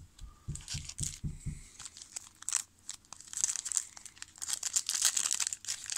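A trading-card pack wrapper being crinkled and torn open. There are a few soft low thumps in the first second and a half, and the crinkling grows busier in the second half.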